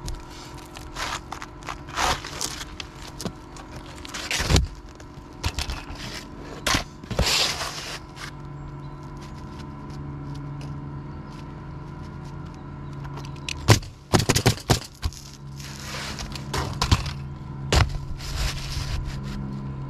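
Roofing work on a roof deck: scraping and sliding noises with scattered sharp knocks, and a quick run of knocks about fourteen seconds in. A steady low hum comes in about eight seconds in.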